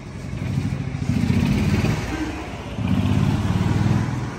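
An engine revved twice, in two bursts of about a second each with a rapid low pulsing, then settling back down.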